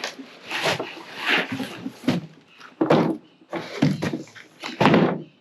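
Boxed transmission rebuild kits being handled: several separate knocks and scrapes of boxes being moved and set down.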